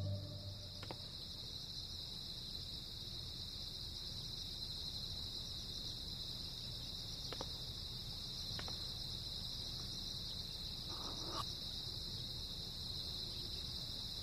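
Night-time crickets chirping as a steady high-pitched drone, with a few faint clicks scattered through it.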